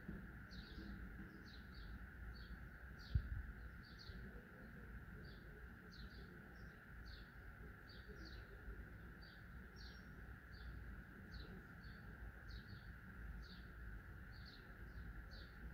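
Faint outdoor ambience: a small bird chirping over and over, about two or three short falling chirps a second, over a steady drone and a low rumble. One dull thump comes about three seconds in.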